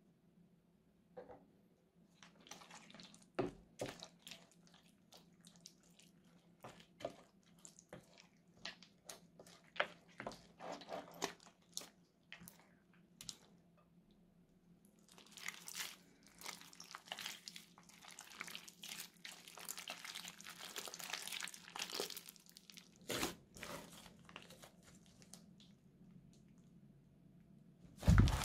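Thick slime with chopped crunchy plastic pieces mixed in, stirred with a plastic spatula in a glass bowl: irregular wet crackles and clicks, sparse at first and denser about halfway through. A faint steady hum sits underneath, and a loud crinkling burst comes right at the end.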